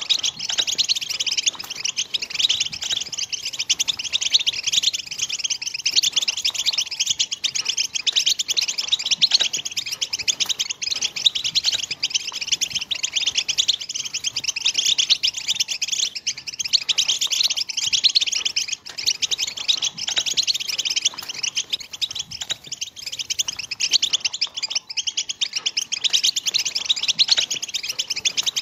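European goldfinch song: a dense, fast, unbroken twittering chatter of high chirps and trills, the 'betbeta' song that keepers play to stir goldfinches to sing and breed.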